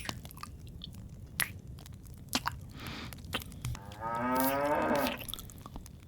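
A cow moos once, about four seconds in: one long call that falls slightly in pitch. Scattered small clicks and crackles sound around it.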